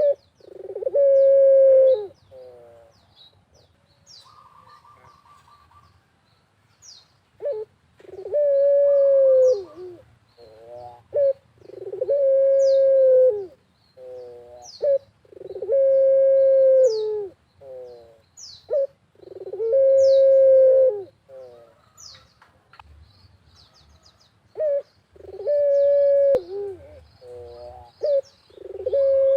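Puter (Barbary dove) cooing over and over: a long, steady coo about every four seconds, with short quick notes around each. Thin, high, falling chirps from small birds sound between the coos.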